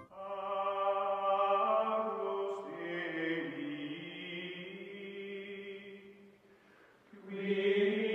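Outro music of long, held chant-like voices with slowly shifting notes. It fades about six and a half seconds in and swells back a second later.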